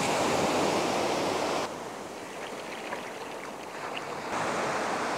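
Steady rushing noise of surf and wind buffeting the microphone. It drops abruptly in level a little under two seconds in and comes back up about four seconds in.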